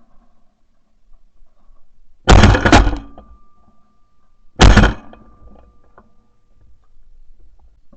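Two shots from a Franchi Affinity 3.5 12-gauge semi-automatic shotgun, fired a little over two seconds apart, each a sharp, very loud blast with a short ringing tail.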